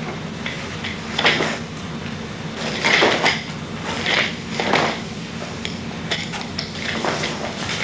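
Nunchaku being swung through a kata: a series of short whooshes as the sticks cut through the air, mixed with a few sharp clacks as they are caught.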